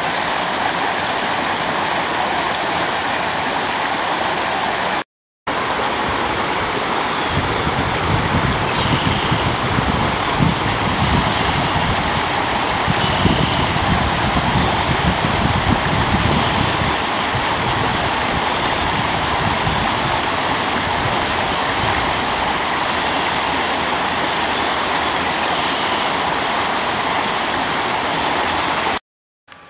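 Creek water rushing steadily over rocks. A low rumble joins in for several seconds near the middle, and the sound cuts out briefly twice.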